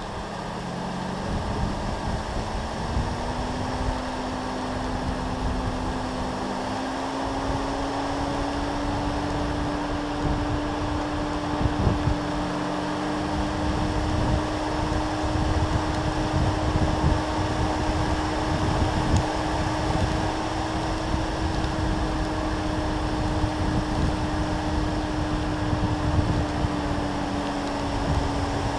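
BMW M2 Competition driving on a wet road: steady road and wind noise under a steady hum from the car that rises a little in pitch over the first several seconds, then holds.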